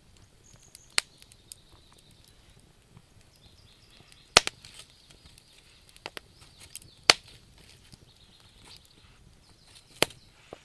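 Wood fire crackling: scattered sharp pops and snaps, the loudest about four, seven and ten seconds in, over a faint steady hiss.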